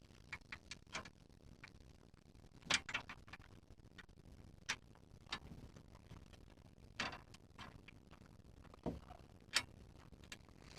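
Scattered sharp clicks and light knocks of metal parts and hand tools being handled, about a dozen irregularly spaced ticks with no steady rhythm.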